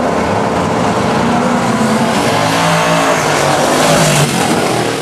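Drag radial race cars at full throttle down the drag strip. The engine sound is loud throughout and loudest about four seconds in, as a Fox-body Mustang notchback passes, then begins to fade.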